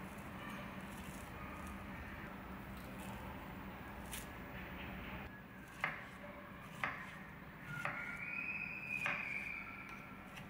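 A kitchen knife slicing through a red dragon fruit on a wooden cutting board, with four sharp taps of the blade on the board from about six seconds in. About eight seconds in, a neighbour's child's voice calls out, one high drawn-out sound lasting about two seconds.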